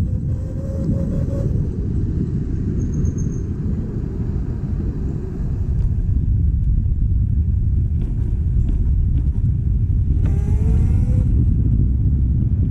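Riding a Vespa scooter: heavy wind rumble on the microphone over the scooter's running, with a brief rising whine about ten seconds in as it speeds up.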